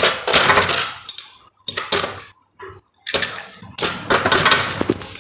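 Metal-wheel Beyblade spinning tops whirring and clattering against each other and the stadium in a battle, in bursts of scraping and clinks, with a brief near-silent gap about halfway through.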